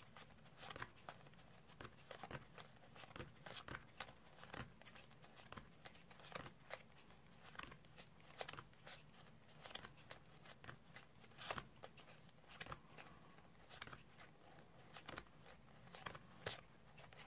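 Playing cards being pushed off a pack one at a time and dropped onto a pile on a cloth close-up mat: faint, irregular soft clicks and flicks of card against card.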